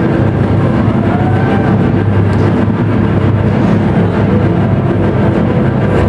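Loud, bass-heavy posing music over a hall PA, heard as a dense, unchanging rumble through an overloaded camcorder microphone.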